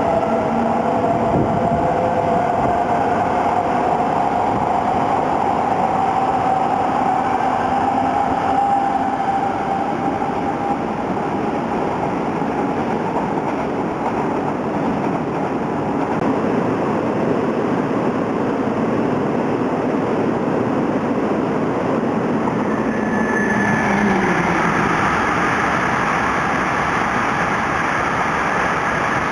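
Shinkansen trains running through the station. First an E2 series coupled to an E3 series R-set gives a steady rumble with a whine that slowly falls in pitch. About 24 seconds in, the sound changes to an E5 series train running beside the platform.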